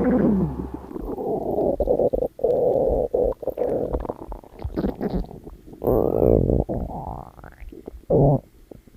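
Stomach growling and gurgling: a long run of irregular rumbles and gurgles with a few short pauses. It opens with a falling growl and has some rising gurgles around six to seven seconds in.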